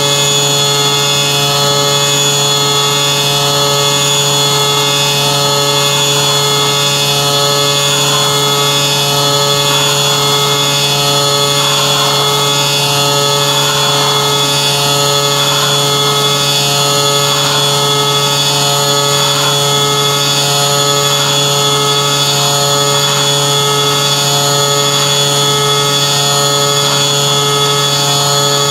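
Syil X7 CNC milling machine cutting an aluminium triple clamp top plate with an end mill under flood coolant. It is a steady whine made of several constant tones over a constant low hum, with a slight wavering in the cut through the middle.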